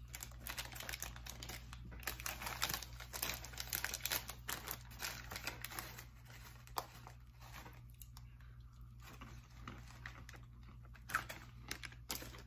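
Snack bag of dry roasted peanuts crinkling and tearing as it is opened and handled; the crackling thins out after about six seconds.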